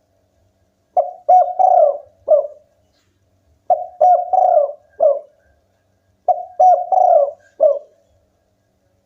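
Spotted dove (tekukur) cooing: three separate phrases of about four low notes each, a couple of seconds apart.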